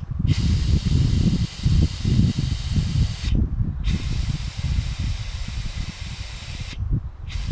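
Air hissing out of an inflatable kayak's valve in two steady spells of about three seconds each, stopping abruptly for about half a second between them and again near the end. Air is being let out because the gauge shows the pressure too high, in the yellow zone rather than the green. A low rumble runs underneath.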